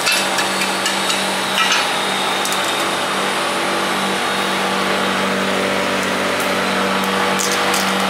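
Steady whirr and hum of a motor-driven fan running beside a charcoal kebab grill. Flat metal kebab skewers clink against the grill a few times near the start and again near the end.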